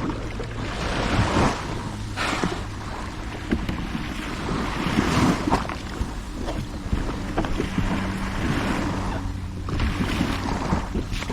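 Water splashing and sloshing around a kayak in irregular swells every second or two, with wind on the microphone and a faint low hum underneath.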